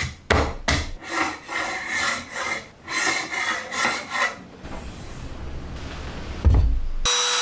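Irregular scraping and rubbing strokes on wood for about four seconds, then a low rumble and a thump. Near the end a small wood trimmer's motor cuts in with a steady whine.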